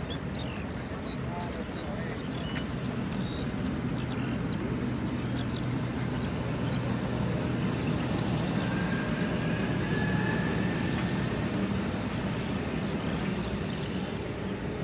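Airbus A350-900's Rolls-Royce Trent XWB engines at taxi power as the jet rolls past, a steady rumble with a faint whine that grows a little louder toward the middle. Birds chirp in the first couple of seconds.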